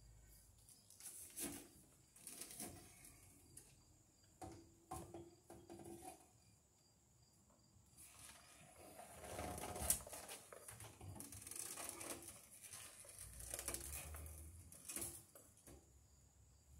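Faint handling noise from electrical wire and hand tools at a breaker panel: scattered small clicks and rustling as the wire is stripped with pliers and pushed into the panel, with one sharp click about ten seconds in.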